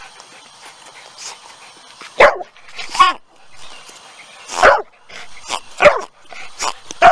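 Pink rubber pig squeeze toy being squeezed by hand, letting out about five short oinks at uneven intervals.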